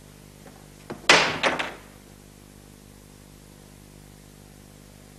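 Two light clicks, then a loud bang about a second in, followed by a short rattle of three or four quicker knocks, over a faint steady hum.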